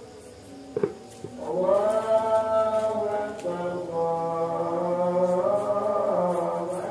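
A voice chanting in long, drawn-out held notes that slide slowly up and down in pitch, growing louder about a second and a half in. A short sharp click sounds just before.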